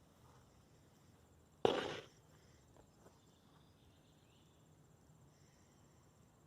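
Faint insects trilling high and steadily, with one short, loud burst of noise about a second and a half in that quickly fades.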